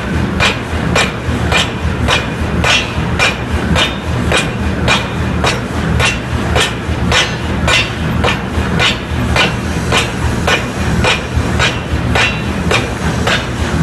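C41-750kg pneumatic forging hammer striking a red-hot steel ring in steady, rapid blows, about two a second, over a steady low machine hum.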